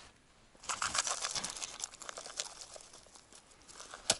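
Dry groundbait pattering and crackling as it is poured from a plastic cup into an ice-fishing hole and onto the slushy snow around it. A sharp click comes near the end.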